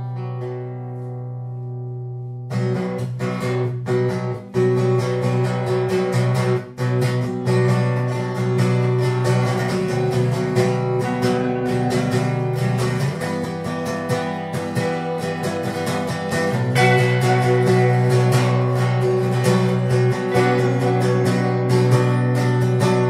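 Soundtrack music, a raw recording of guitar playing. A held chord rings at first, then fuller, strummed playing comes in about two and a half seconds in and carries on steadily.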